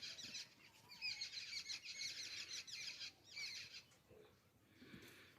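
Small birds twittering in rapid high chirps in two spells, dying away about four seconds in, with a faint low sound near the end.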